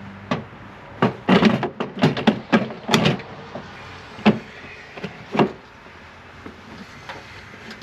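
Plastic liftgate trim panel of a GMC Terrain being tugged by hand against its retaining clips, knocking and clacking. A quick run of sharp knocks over the first three seconds, then two single knocks about four and five and a half seconds in.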